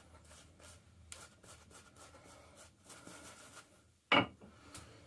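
Shaving brush rubbing lather into a beard: soft, irregular brushing strokes. A brief knock about four seconds in.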